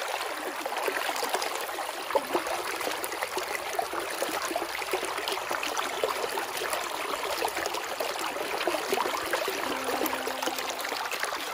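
Stream water babbling over rocks, a steady rush with many small splashes.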